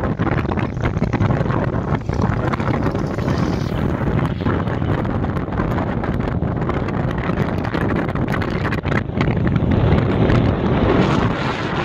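Wind buffeting the microphone on a moving motorcycle: a steady, loud rushing noise that swells a little near the end.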